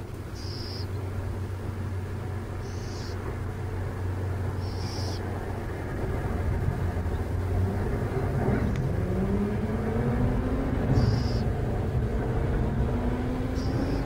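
Steady low engine rumble of motor traffic, growing louder in the second half, with an engine's note gliding up and down near the middle. Over it come short high hissing notes about every two seconds.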